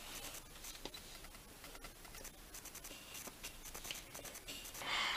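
Pencil scratching across paper in short, irregular strokes, with a louder stroke near the end.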